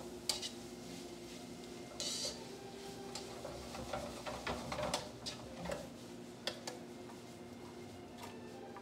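Metal tongs clicking and scraping against a nonstick skillet as stir-fried vegetables are turned and tossed: irregular light clicks, over a low steady hum.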